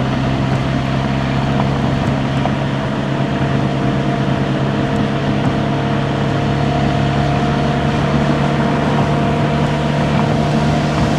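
Audi A4 B9's 2.0 TFSI turbocharged four-cylinder engine and road noise while cruising at a steady speed: a constant engine drone of unchanging pitch over a steady tyre-and-wind rush.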